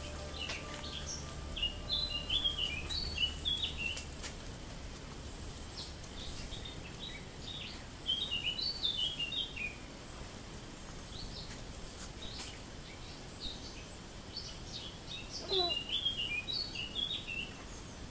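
A songbird singing three short phrases of quick chirping notes, each phrase stepping down in pitch, a few seconds apart, over a low steady background hum.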